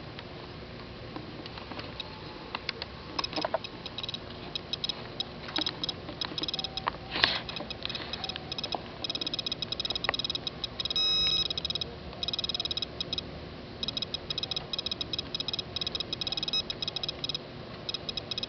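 SOEKS radiation dosimeter clicking for each particle it detects. The clicks start sparse and turn to fast, dense clicking about halfway through as the reading climbs, with one short steady beep in the middle. The rising click rate is the sign of raised radioactivity in the rain-collected foam.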